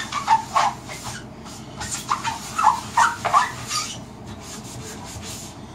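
Magic eraser (melamine foam sponge) scrubbing a painted kitchen cabinet door in a run of quick rubbing strokes, which ease off after about four seconds.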